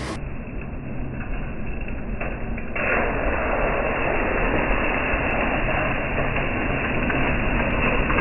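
Muffled, steady running of a TVS Scooty motor scooter's small engine as it rides up through a puddle, getting louder about three seconds in.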